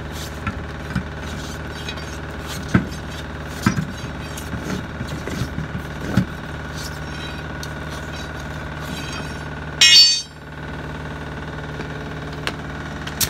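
An engine running steadily, with scattered metal knocks and clinks from hands and tools working on a truck wheel. A short, loud burst comes about ten seconds in.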